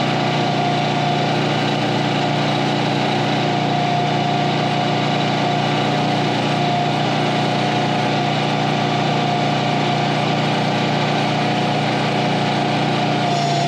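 Small engine that powers a removable-gooseneck trailer's hydraulics running steadily at a constant speed, with a steady whine over it, while the neck's hydraulic cylinders are worked.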